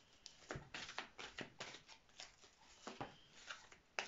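A deck of oracle cards being shuffled by hand: a faint run of irregular soft flicks and clicks as the cards slide over one another, with one card dealt onto the cloth-covered table.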